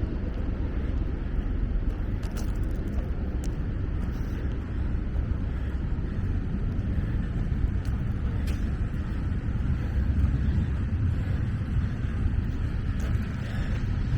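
CSX freight train rolling past: a steady low rumble of wheels on the rails, with a few sharp metallic clicks.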